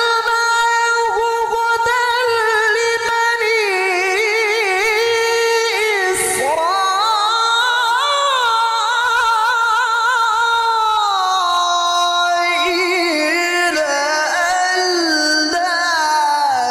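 A male Quran reciter (qari) holds a long, high melismatic phrase of tilawah with quick wavering ornaments, amplified through a handheld microphone. The pitch climbs about six seconds in and comes back down in steps over the last few seconds.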